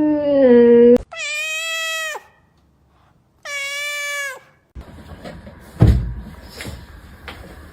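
Domestic cat meowing: a lower drawn-out call, then two higher meows of about a second each that drop in pitch at the end. A dull thump follows about six seconds in.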